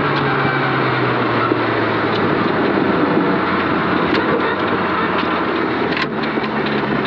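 Mazda 323 rally car heard from inside the cabin, its engine running at a steadily lower pitch as the car slows after the stage finish, over the hiss of tyres on gravel. A few sharp ticks come through, about two seconds apart.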